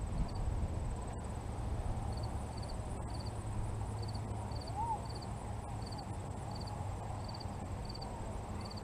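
Wind rumbling on the microphone, with an insect chirping in short high pulses about twice a second and a faint steady high whine behind it.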